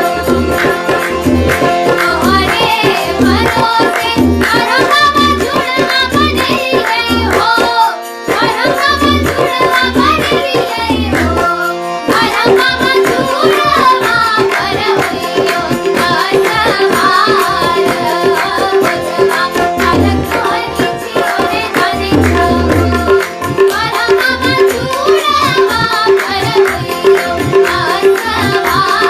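Jhijhiya, a Maithili folk song from Mithila, sung to tabla accompaniment: a sung melody over a steady drum rhythm, with a brief break about eight seconds in.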